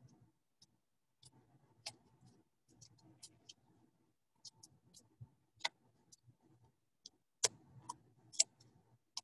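Faint low hum of a laboratory fume hood running, with a few scattered light clicks and taps, the clearest about two seconds in and near the end.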